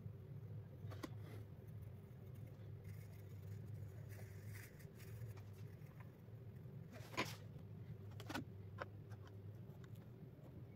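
Faint pencil scratching on drawing paper, with a few sharp clicks and taps (the loudest about seven seconds in) over a steady low hum.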